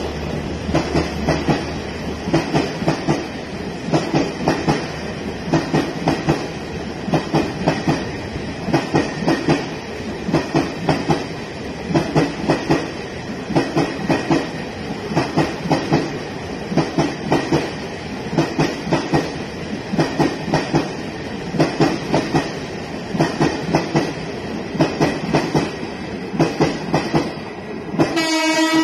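Maharaja Express passenger coaches passing along a station platform, their wheels clattering over the rail joints in regular clusters of clacks about every second and a half, over a steady rolling rumble. A steady pitched tone cuts in abruptly at the very end.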